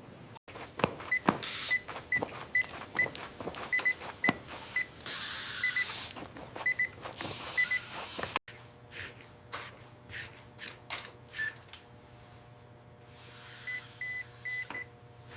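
Short high electronic beeps, often in pairs, typical of a patient vital-signs monitor, mixed with sharp clicks and a few short bursts of hiss. About eight seconds in, the sound drops to a low steady hum, and another quick run of beeps comes near the end.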